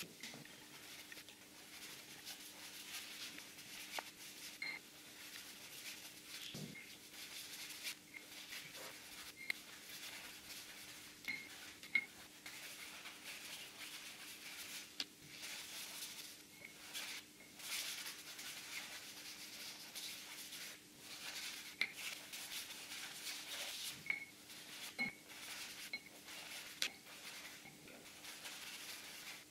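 Paint being rubbed across a primed board by hand in short repeated strokes: a faint scratchy swishing with scattered light clicks and knocks, over a low steady hum.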